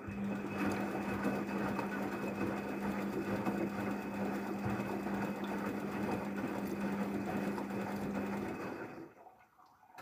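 Daewoo DWD-FT1013 front-loading washing machine tumbling its drum through water on a drum-clean cycle: a steady motor hum with water sloshing, which stops about nine seconds in as the drum comes to rest.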